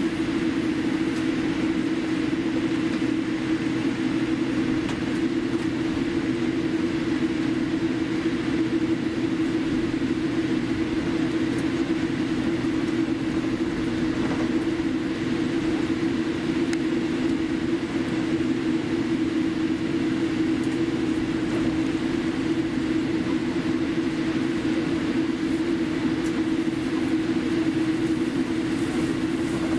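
Steady cabin noise inside a Boeing 787 Dreamliner taxiing on the ground: its engines turning at low taxi power under a broad rush of air, with a steady low drone.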